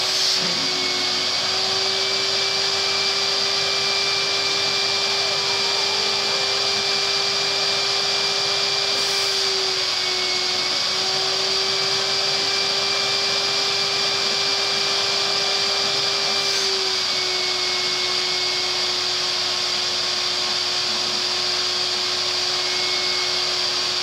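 Vacuum cleaner running steadily, its motor whine sitting over a constant rushing hiss. The whine dips slightly in pitch twice, about ten and seventeen seconds in.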